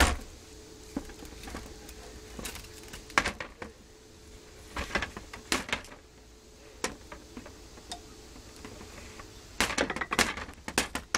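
Wooden dollhouse panel being pried and knocked apart with a hammer: scattered sharp knocks and cracks of wood, with a quick run of them near the end.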